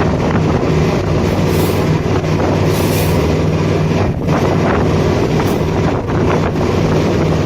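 Boat's engine running steadily, a constant low drone, with wind gusting over the microphone.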